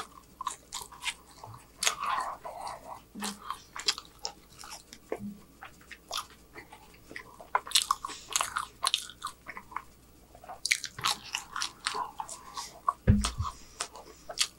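Close-miked chewing of French fries: wet mouth clicks and crackles in irregular bursts, with a brief low thump near the end.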